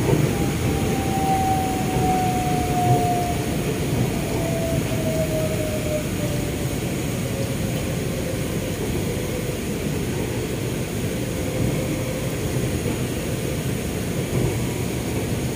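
Heard from inside the car, a Bangkok MRT Yellow Line monorail train running with a steady rumble. A single motor whine falls gently in pitch as the train slows into a station.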